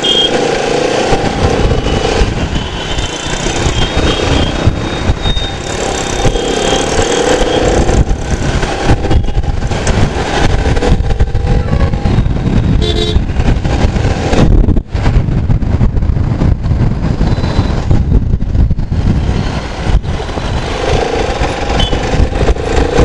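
Motorcycle ride through dense city traffic: wind buffeting the microphone over the engine and surrounding vehicles, with horns sounding several times, near the start, around the middle and near the end.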